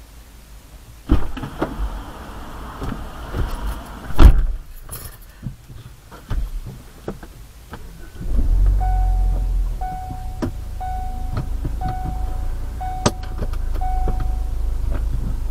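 A car door opens, with rustling and clicks as someone gets in, and shuts with a thud about four seconds in. About eight seconds in the engine starts and settles into a steady idle, while a dashboard warning chime sounds about once a second, six times.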